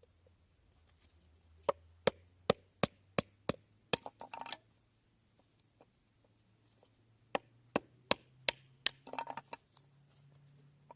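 Knife chopping on a cutting board: two runs of sharp, evenly spaced strokes, each ending in a short scrape across the board.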